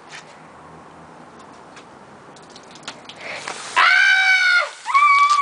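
A steady faint hiss with scattered small clicks, then, about three and a half seconds in, two long high-pitched shrieks from excited children.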